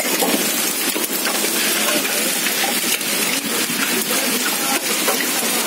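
Heavy rain mixed with hail pelting down on hard ground and vehicles: a dense, steady hiss scattered with many small sharp ticks of hitting stones and drops.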